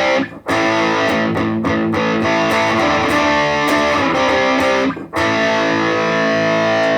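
Electric guitar strummed through a Positive Grid Reactor 50 combo amp on its crunch channel with the "pushed" voicing, giving a distorted tone. Chords ring out, with two brief breaks between them: one about half a second in and one about five seconds in.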